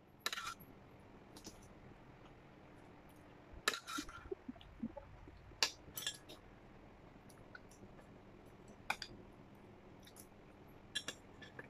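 Metal spoon and chopsticks clinking against stainless steel plates and bowls while eating: several short, sharp clinks at irregular intervals.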